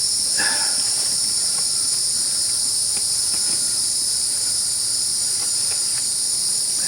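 Steady, high-pitched chorus of insects, such as crickets, running without a break, with a few faint taps underneath.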